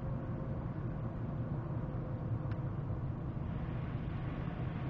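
Steady low rumble of a car driving: road and engine noise heard inside the cabin.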